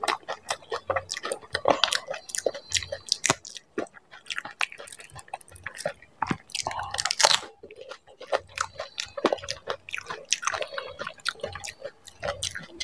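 Close-miked chewing and biting of dahi puri, crisp fried puri shells filled with yogurt: a dense run of crackly, wet mouth sounds, with one louder crackle about seven seconds in.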